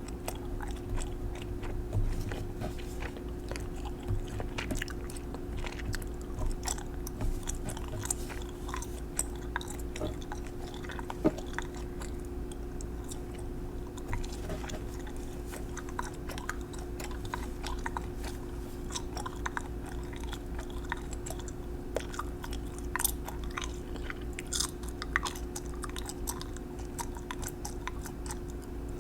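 Gum being chewed and smacked close to the microphone: irregular small wet clicks and pops over a steady low hum.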